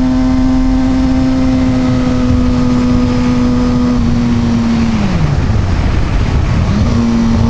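Kawasaki ZX-6R 636's inline-four engine running at high, steady revs under way, with a rush of wind noise. About two-thirds of the way through, the revs fall away as the throttle is shut, then pick straight back up to the same pitch about two seconds later.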